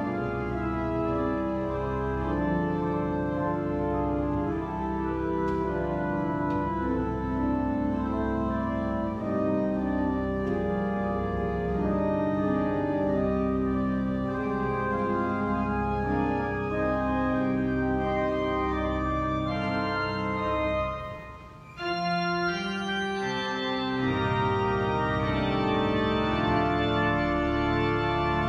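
Church pipe organ playing sustained chords over deep bass notes. About 21 seconds in the sound briefly dies away between phrases, then the playing resumes.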